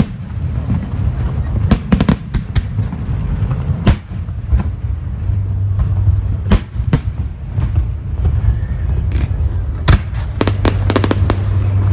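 Fireworks bursting overhead: sharp bangs, some in quick crackling clusters, over a constant low rumble.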